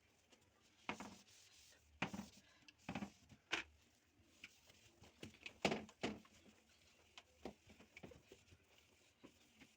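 Towel wiping the inside of a fridge door: faint, irregular rubbing strokes with a few light knocks.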